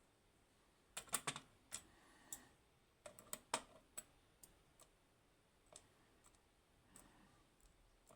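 Light, sharp clicks and taps of small metal lock pins and parts being handled, in two quick clusters, then a few scattered ticks.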